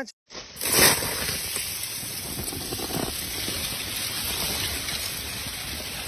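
Needle ice on a frozen lake: a steady hiss made of many small crackles and clinks, swelling briefly about a second in.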